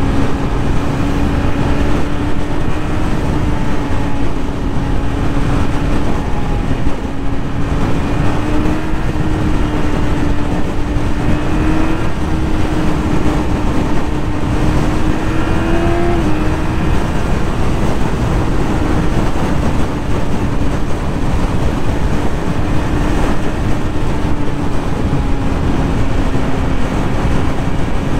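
Yamaha YZF-R6 600cc inline-four sportbike engine running at a steady freeway cruise, its note holding even, then rising a little and dropping back sharply about halfway through. Heavy wind rush over the microphone at highway speed runs under it.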